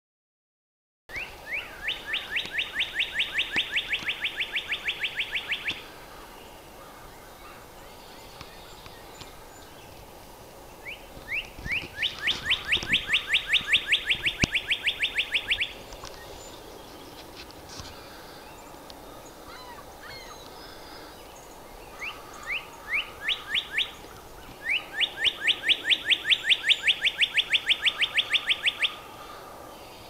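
Northern cardinal singing three long songs, each opening with a few separate slurred whistles that speed into a fast run of about five rising notes a second, with pauses of several seconds between songs.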